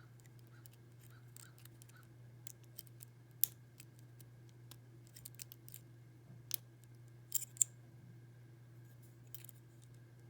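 Lock pick and tension wrench working the pins of a six-pin First Watch padlock: sparse small metallic clicks and scrapes, the sharpest a little past three seconds and between six and eight seconds in, over a faint steady hum.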